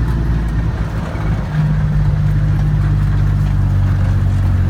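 Motor vehicle engine running as the vehicle drives along, with a low steady hum that shifts and holds a steadier pitch about a second and a half in.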